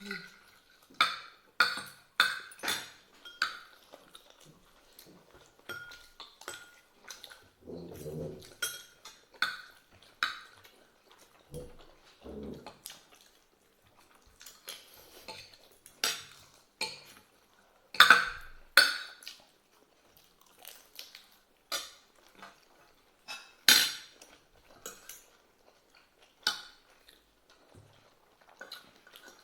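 Cutlery clinking and scraping against plates during a meal: many irregular clinks, some ringing briefly, with a few louder knocks.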